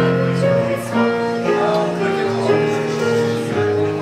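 Instrumental music with a slow melody of long held notes.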